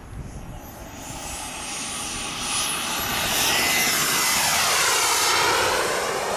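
Radio-controlled model jet taking off and flying past: a high-pitched engine whine swells over the first few seconds, is loudest as the plane passes low, and eases a little as it climbs away.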